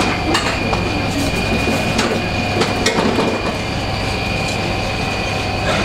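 Chicken rotisserie oven running: a steady mechanical hum with a constant high whine as the spits turn, and a few sharp clicks.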